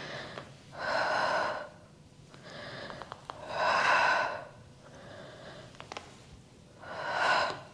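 A woman's forceful exhalations through the mouth, three of them about three seconds apart, with quieter inhales between: breathing out on the effort of each spinal twist against a spring-loaded handle.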